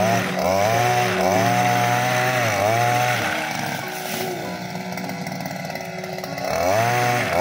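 Small two-stroke engine of a Cantas motorised oil palm harvesting pole, revved up in three quick throttle bursts with brief dips between them. It then drops to a lower, steady speed for a few seconds and revs up again near the end.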